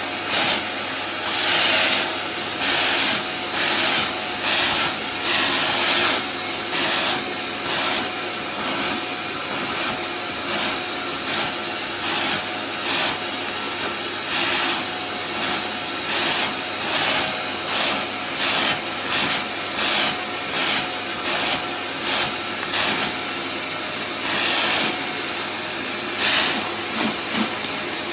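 Vacuum cleaner running with a steady hiss, its airflow surging loudly in short bursts every second or so.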